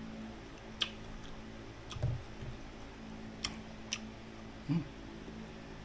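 Mouth sounds of crisp green mango slices being bitten and chewed close to the microphone, with about four short sharp crunches spread a second or so apart.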